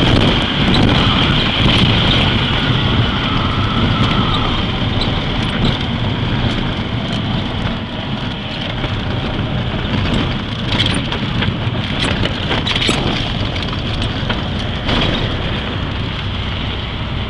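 A single-engine Cessna's piston engine and propeller running steadily with rushing air, heard from inside the cabin during the landing approach to a dirt strip. From about the middle, a run of clicks and rattles joins in, as the plane comes onto the rough ground.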